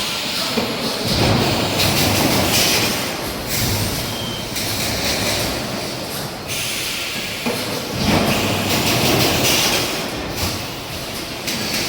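Industrial machinery running in a factory, a loud continuous mechanical rumble and clatter whose character changes abruptly several times.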